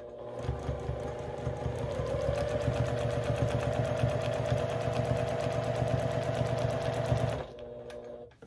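Juki sewing machine stitching fast in free-motion quilting mode, with the feed dogs dropped. The needle makes a rapid, even ticking over a steady motor hum, which picks up slightly about two seconds in. It starts half a second in and stops about a second before the end.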